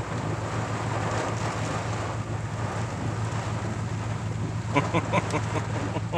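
Heavy storm rain and wind on a pickup truck, heard from inside the cab over the steady low hum of the idling engine, with the windshield wipers sweeping. A short run of squeaks comes about five seconds in.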